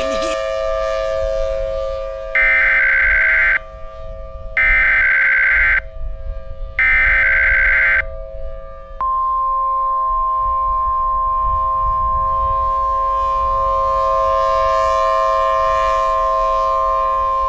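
Emergency Alert System tones: three short bursts of SAME header data screech, about a second each, then, about nine seconds in, the long steady two-tone attention signal, over a steady background tone.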